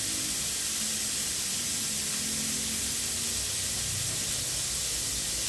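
Steady sizzling hiss of meat and shrimp frying in a pan.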